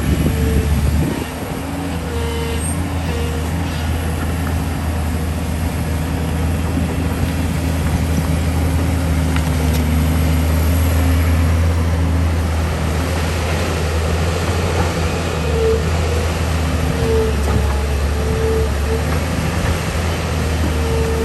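Excavator's diesel engine running steadily under load, with a higher whine, typical of the hydraulics, coming and going.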